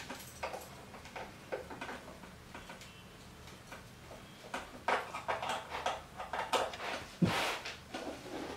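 Hand assembly of a steel tripod tattoo arm rest: screws being turned into the padded rest and metal parts handled, giving small clicks, scrapes and knocks. They are sparse at first and busier from about halfway, with one longer, louder scrape near the end.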